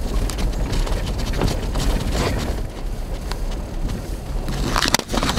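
Inside an SUV's cabin: low rumble of the vehicle driving slowly over a snow-covered road, with irregular crackles and knocks from the tyres on snow and from things rattling in the cab, and a cluster of sharper knocks about five seconds in.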